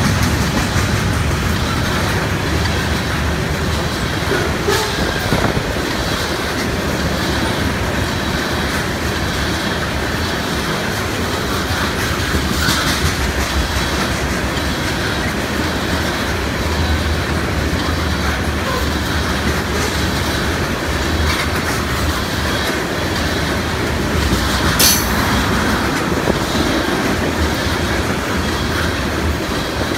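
Freight train of tank cars rolling past close by, a steady noise of steel wheels on rail, with a brief sharp screech near the end.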